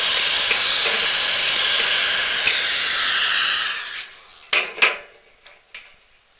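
Electric heat gun blowing hot air with a steady, loud hiss, heating the glue that holds a speaker cable in the cabinet. It is switched off a little under four seconds in and dies away, and two sharp knocks follow.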